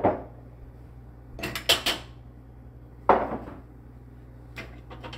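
Empty glass pint canning jars being set down one after another on a wooden counter: a series of knocks and clinks, the sharpest about three seconds in, with lighter clicks near the end.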